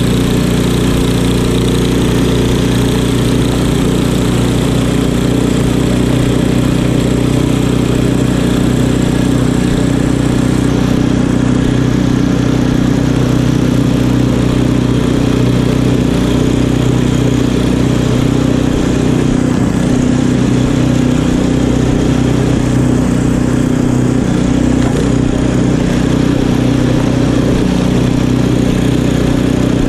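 Craftsman two-stage tracked snowblower's small gas engine running steadily while it is pushed through fresh snow.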